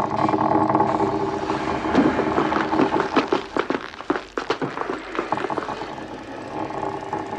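A steady droning chord of several held tones, like a mechanical music box playing. About two seconds in, a run of scraping clatters and clicks begins and lasts roughly three seconds.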